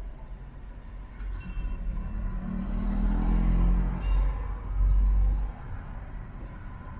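Deep motor-vehicle rumble in city traffic, building from about a second in, loudest in the middle, then dropping off suddenly about five and a half seconds in.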